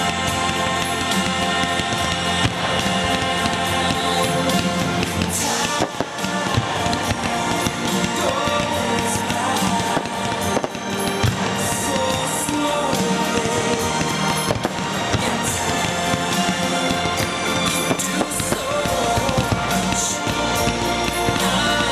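Fireworks going off, with repeated sharp bursts over music that plays throughout.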